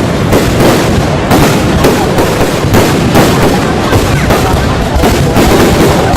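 Fireworks going off in a dense, loud barrage: several sharp bangs a second run together with constant crackling, with no pause.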